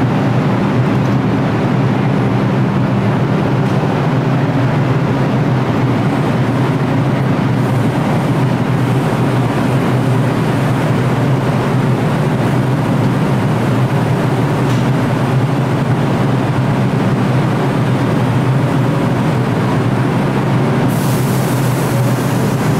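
Subway train running on the track: a loud, steady, unbroken rumble, with a hiss joining near the end.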